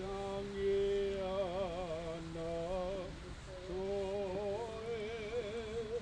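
Slow singing in long held notes with a wavering vibrato, in phrases of one to two seconds.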